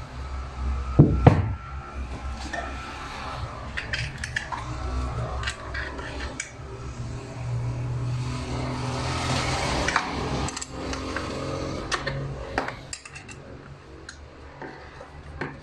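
Metal tools and parts clinking, knocking and scraping as they are handled, with the loudest knocks about a second in.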